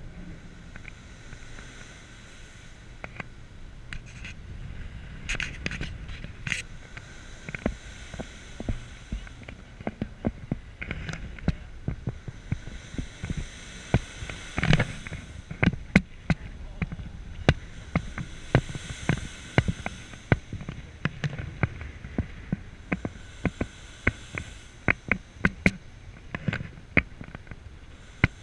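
Low steady rumble of a ferry under way with wind on the microphone, broken by many irregular sharp crackles and pops that come more often from about ten seconds in.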